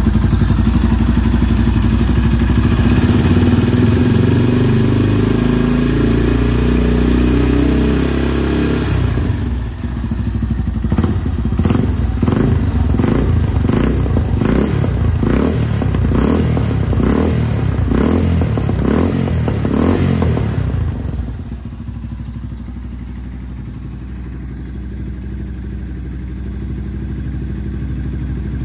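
Yamaha TW200's single-cylinder four-stroke engine running through an aftermarket full exhaust system. It idles steadily, then the throttle is blipped in quick repeated revs for about twelve seconds, then it settles back to idle.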